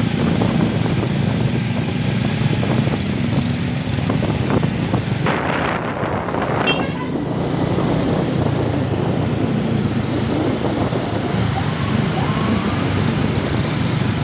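Bus engine running close by with a steady low rumble, and a short hiss about five seconds in.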